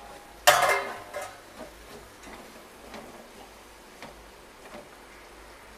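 A ladle clinks against a large metal cooking pot about half a second in, then soft light ticks and scrapes as a thick curry is stirred.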